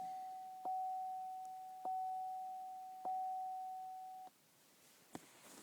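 Chevrolet Cruze's dashboard warning chime dinging three times, about once every 1.2 seconds, each ding ringing on and fading, then stopping about four seconds in. A single short click follows near the end.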